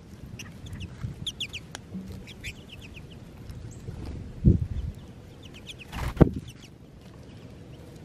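A flock of American goldfinches twittering with short, high chirps while feeding on seed, with two louder soft thumps close by, about halfway through and about six seconds in.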